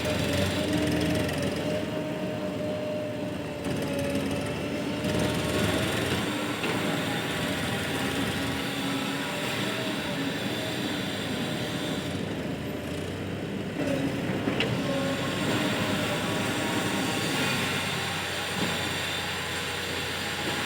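Heavy diesel machinery running steadily under load, with a wavering whine above the engine noise.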